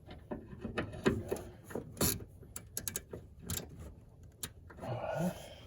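Ratchet wrench clicking in short, irregular runs, with a few metal clinks, as the screws holding a new ignition module are snugged up.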